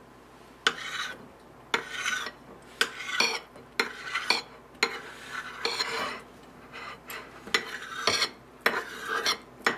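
A kitchen knife slicing through a slab of Spam, the blade scraping and clicking against a ceramic plate in repeated short strokes, roughly one or two a second.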